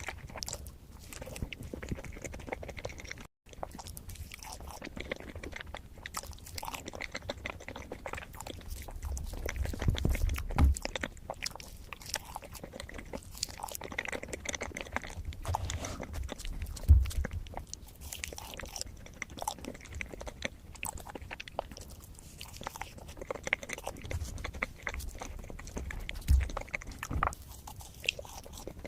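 Close-miked eating of a matcha dessert: steady chewing with many small wet mouth clicks, and a few low thumps along the way.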